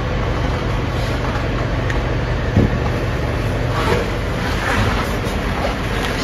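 Steady, loud machinery drone with a low hum from a running diesel generator set, with a brief knock about two and a half seconds in.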